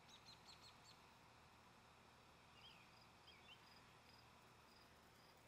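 Near silence with faint, high bird chirps: a quick run of about five near the start and a few more around the middle. A faint, evenly repeating high tick goes on underneath.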